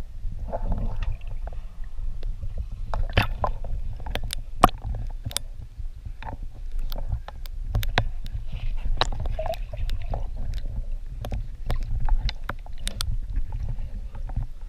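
Water sloshing and splashing close to the microphone during swimming, over a steady low rumble, with many sharp knocks and clicks scattered throughout.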